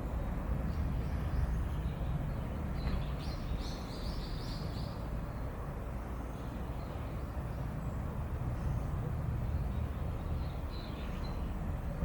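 Outdoor ambience: a steady low rumble, with a small bird giving a quick run of high chirps about three and a half seconds in and a few more near the end.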